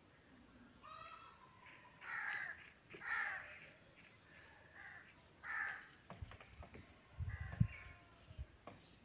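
A crow cawing several times, each call about half a second long. Low bumps near the end make the loudest moment.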